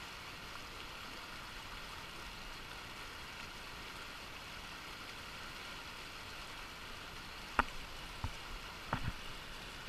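Fast river water rushing over rocks in shallow rapids, a steady even hiss. A few sharp clicks come near the end.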